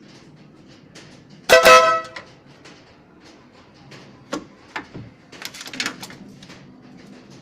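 Stebel-style compact motorcycle air horn, new and unmounted, sounding one short two-tone blast of about half a second. It is followed a couple of seconds later by several sharp clicks and taps.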